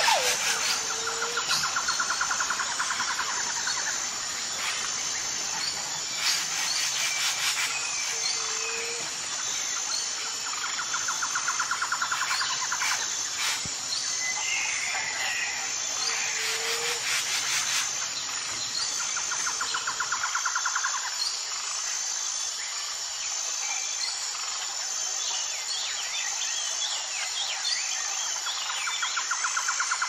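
Nature ambience: insects chirping in a steady, fast-pulsing high chorus, with birds calling over it. A trill comes back several times, and a short low whistled note repeats every eight seconds or so. A faint low hum stops about two-thirds of the way through.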